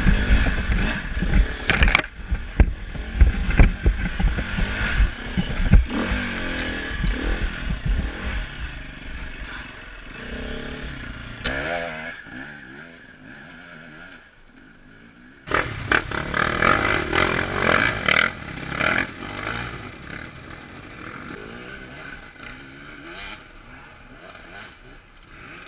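Dirt bike engine revving up and down while being ridden over a rough, rutted trail, with rumble and knocks from the ride on the helmet camera. It eases off for a moment past the middle, comes back suddenly loud, then dies away gradually toward the end.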